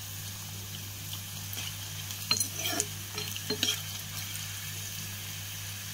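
Green chillies, peanuts and dals sizzling in hot oil in a kadai while a metal spoon stirs them, scraping and clinking against the pan a few times midway, over a steady low hum.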